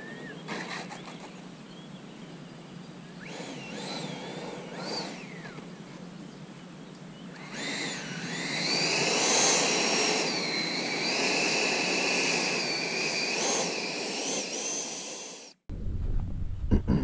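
Electric ducted fan of an E-Flite F-16 Viper 80 mm model jet whining as it taxis. The whine's pitch glides up and down with the throttle and grows louder about halfway through. Near the end it cuts off suddenly, and wind rumbles on the microphone.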